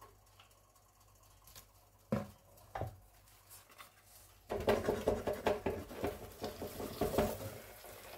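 Two knocks as a wooden board is handled at the pan, then a potato tortilla slides from the board into a hot, oiled non-stick frying pan, setting off a dense crackling sizzle that lasts about three seconds before easing off.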